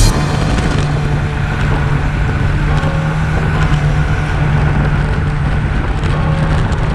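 Steady rushing noise with a constant low hum, typical of wind and tyre noise while riding in a bicycle race.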